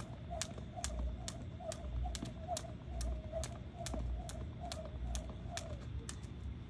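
Jump rope slapping the ground in a steady rhythm of sharp clicks, about two to three a second. Behind it a faint wavering trill stops about six seconds in.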